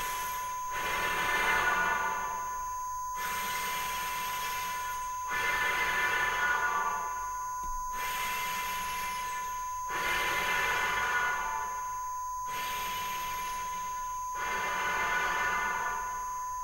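Suspense sound design for a TV drama: a steady high tone held throughout, under a hissing swell that comes and goes every two to three seconds.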